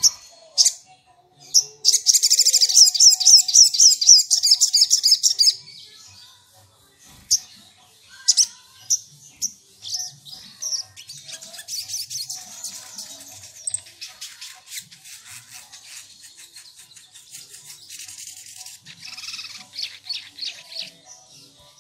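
Sogok ontong, a spiderhunter, singing: a loud, rapid trill of high chirps for a few seconds, then scattered single chirps and a long run of quieter fast chattering.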